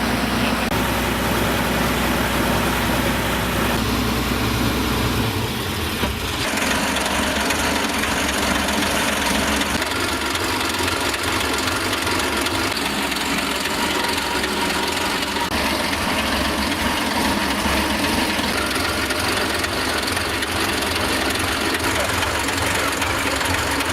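Tractor engine running steadily. Its low note shifts a little after five seconds in, then it carries on running with an even rhythm.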